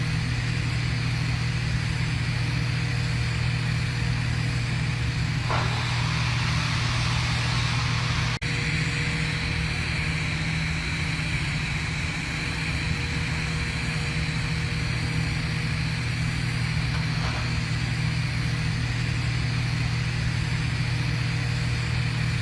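TIG welding arc: a steady buzzing hum over a hiss, with a momentary break about eight seconds in.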